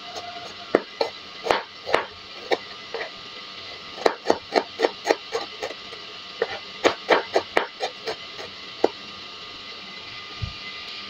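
Kitchen knife chopping shallots on a plastic cutting board: a run of sharp, uneven taps in quick bursts that stop about nine seconds in.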